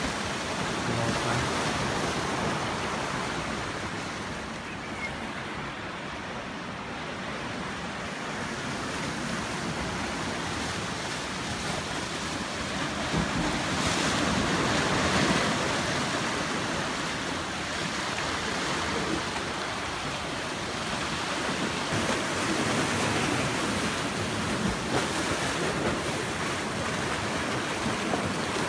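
Ocean surf surging and breaking into a narrow channel between rocks: a continuous rushing wash of foaming water that swells louder about halfway through and again near the end.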